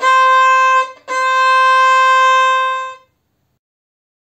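Violin bowing C natural on the A string with the second finger placed low: a short note, then a longer one held about two seconds, both on the same pitch.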